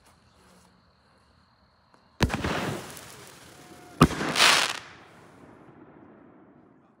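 Raccoon Sawed Off single-shot firework canister going off: a sharp launch bang about two seconds in with the hiss of its white glitter mine, then about two seconds later the shell bursts with a bang and a spell of crackling that dies away.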